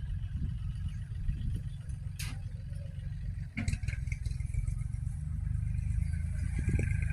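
Harvest machinery engine running with a steady low rumble. There is a sharp click about two seconds in and another about three and a half seconds in, and a higher steady whine joins from about five seconds on.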